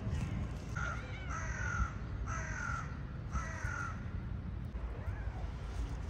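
A crow cawing four times in quick succession, each call slightly falling in pitch, over a steady low background rumble.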